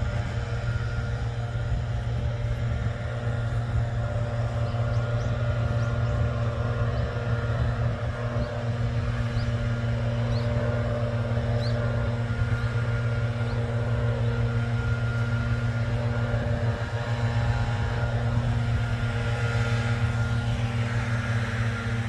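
Steady low mechanical hum with fixed tones, like a running engine or machine, with a few faint, short, high chirps in the middle.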